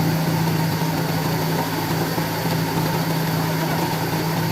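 Motor of a wood-cutting machine running steadily, with a constant hum and no change in speed.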